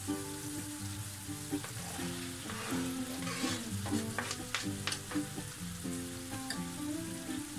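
Food sizzling in a frying pan, with a few sharp clicks of a utensil against the pan about four to five seconds in. Soft background music with a simple melody plays underneath.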